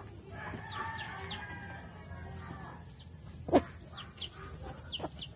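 Rhode Island Red hens feeding: a drawn-out, low murmuring call in the first couple of seconds and short high chirps throughout. A single sharp knock comes about three and a half seconds in, over a steady high drone.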